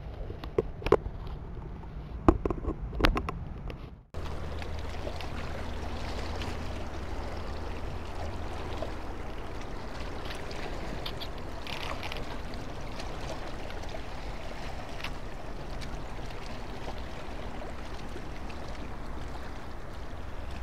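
A few sharp clicks and knocks over the first four seconds as fishing tackle is handled, then a steady rushing of water and wind at the quayside.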